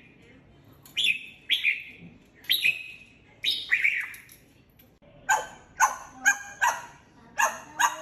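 African grey parrot mimicking a red-whiskered bulbul's song in short falling whistled phrases, then about five seconds in switching to an imitation of a dog barking, a quick run of harsh barks.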